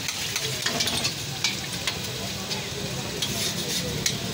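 An egg frying in oil on a flat steel griddle, sizzling steadily, with several sharp clicks and scrapes of a metal spatula against the griddle.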